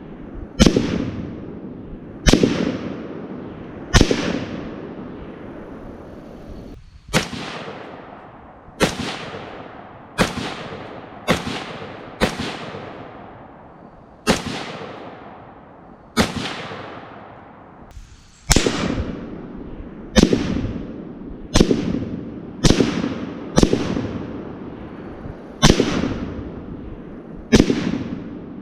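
A firearm firing again and again at a Tannerite target, about seventeen sharp shots spaced one to two seconds apart, each with a long echoing tail. These are misses: the target does not go off.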